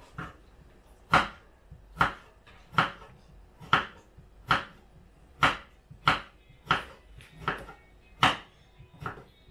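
Kitchen knife chopping vegetables on a cutting board: a steady series of sharp knocks, about one every 0.8 seconds.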